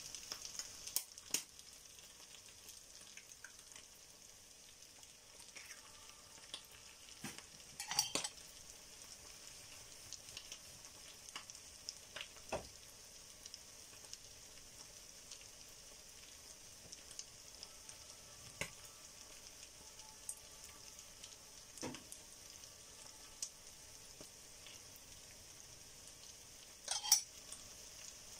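Ground pork sisig sizzling steadily in a frying pan, with a few sharp clicks and knocks scattered through, the loudest about eight seconds in. Near the end a metal spoon knocks and scrapes in the pan.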